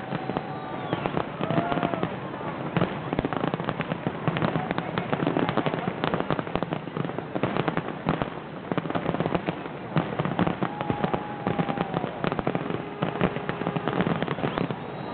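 Large fireworks display: a dense, continuous barrage of bangs and crackles with no let-up, with a few short whistling glides.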